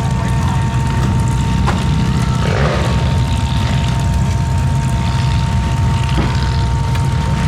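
A vehicle engine running steadily, with a faint constant whine over it.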